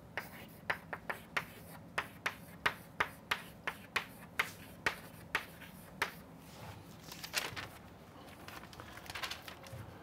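Chalk tapping and scratching on a blackboard as words are written: a run of sharp ticks, about three a second, for the first six seconds or so, then softer and more scattered.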